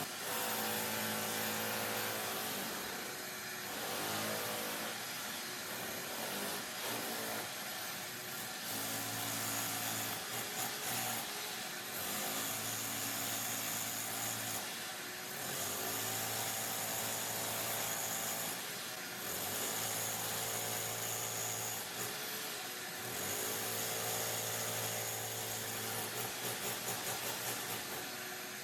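Electric hammer chisel running in bursts of a few seconds with short pauses, chiselling out the firebrick lining of a fireplace.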